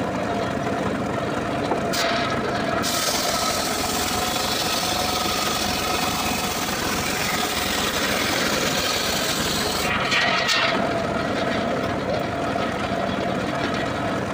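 Homemade engine-driven circular sawmill running steadily. About two seconds in, its blade bites into a dry acacia log and rips along it with a loud, high cutting noise for about eight seconds, then runs free again.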